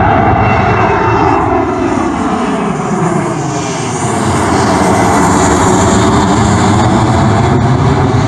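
Boeing 737-800 jet airliner passing low overhead with its engines running loud. Tones slide down in pitch over the first few seconds as it goes by. A high hiss of engine noise builds from about halfway through.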